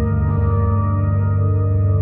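Ambient background music of sustained, held tones with a deep low drone.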